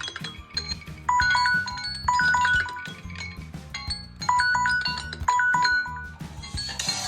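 Samsung smartphone ringtone playing: a bright, chime-like melody over a bass beat, its short phrase repeating. Near the end it switches to a different tune.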